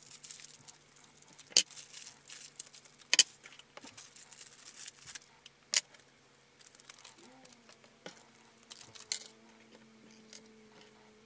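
Small plastic zip bags crinkling as they are opened, with a few sharp clicks as small metal plugs and sealing washers are set down on a workbench.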